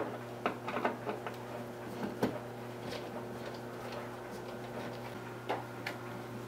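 Scattered light clicks and taps of hands handling thermostat wires and a plastic wall plate, over a steady low hum.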